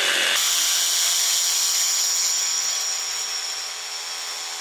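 Reciprocating saw with a Diablo Steel Demon metal-cutting blade, orbital action off, running steadily as it cuts through a steel rod, with a steady high whine over the noise of the cut. It eases off a little in loudness after about three seconds.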